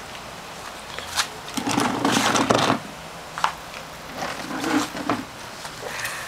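Rottweiler mouthing and chewing a raw mackerel: irregular wet crunching and smacking with a few sharp clicks, loudest about two seconds in.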